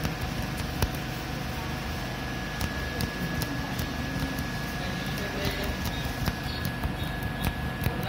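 Steady background hum and noise with a thin high whine held through most of it, and scattered faint ticks.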